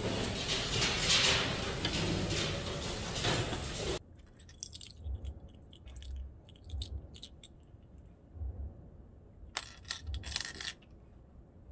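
Busy cafeteria noise with dishes and cutlery clattering, cutting off abruptly about four seconds in. Then quiet small clicks and handling of a wireless earbud case, with soft knocks and a brief louder rustle near the end.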